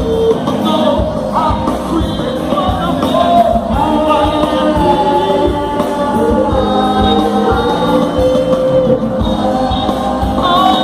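A live band playing a song, with a lead singer over a drum beat.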